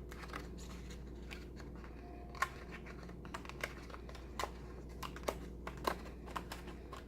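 Paper planner pages being handled and pressed onto a disc-bound planner's discs: scattered light clicks and soft paper rustles at irregular intervals, over a faint steady low hum.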